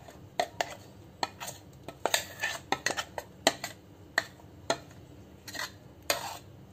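A steel spoon scraping and tapping ground moong dal paste out of a steel mixer-grinder jar into a glass bowl. Irregular sharp clinks of metal on metal and glass, with a few short scrapes.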